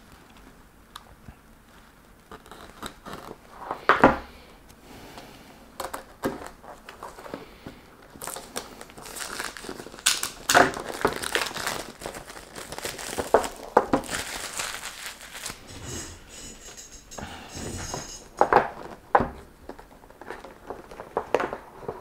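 Cardboard product packaging being opened and handled: crinkling and tearing of the wrapping, the box rustling and being set down on a wooden table, with a sharper knock about four seconds in and a busy stretch of rustling in the middle.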